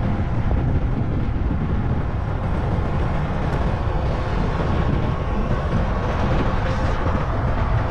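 Steady rumble of a moving vehicle.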